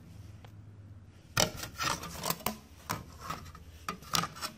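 Handling noise: an irregular run of about a dozen short, scratchy rubs and scrapes, starting about a second and a half in. A faint low hum is heard before them.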